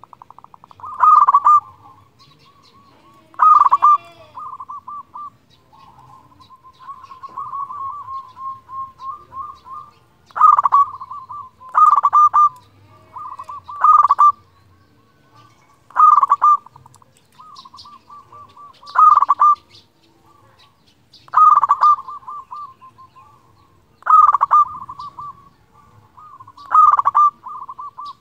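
Zebra dove (perkutut) singing: about ten loud rolling coos, each trailing into softer trilled notes, repeated every two to three seconds, with a quieter run of rapid notes in the middle.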